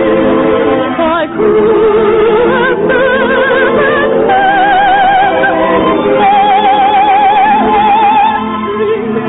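Operetta-style song: a singer holding notes with wide vibrato, moving up and down the scale, over orchestral accompaniment.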